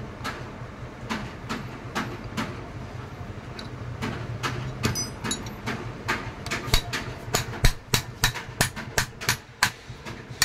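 Metal tools clinking on an AC compressor clutch plate, then, from about six seconds in, a quick run of sharp metal clicks, about four a second. This is the wrench working the clutch plate's centre nut while a holding tool keeps the plate from turning.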